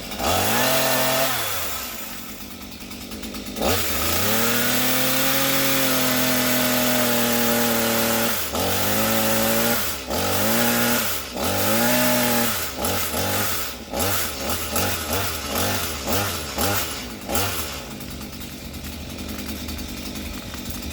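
Gas chainsaw revving and cutting small limbs: a long stretch at high revs, then a run of quick throttle blips, dropping back to idle near the end.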